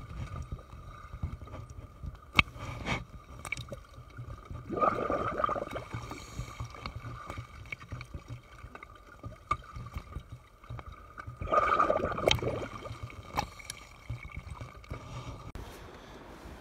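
Seawater sloshing and gurgling around a camera floating half-submerged at the surface, with a low rumble underneath. Two louder surges come about 5 and 12 seconds in, and a few sharp knocks land near the start.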